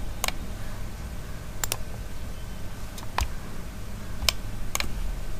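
Computer mouse clicking: about seven short, sharp clicks at uneven intervals, two of them close together near the second mark, over a low steady hum.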